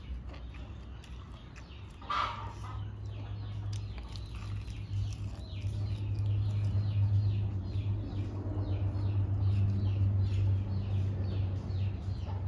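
Chickens in the background: a run of short, high, falling peeps, a few a second, with clucking, over a low steady hum that comes in about two seconds in.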